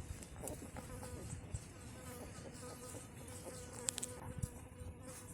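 Flying insect buzzing steadily, with a few faint clicks about four seconds in.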